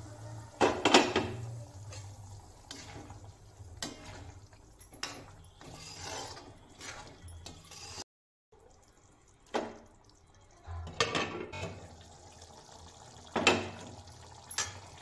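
Cookware clatter: a glass lid lifted off a kadhai of curry and set down with a clank about a second in, then scattered knocks and clinks of pans and utensils, with the curry bubbling underneath. The sound drops out for a moment just past halfway.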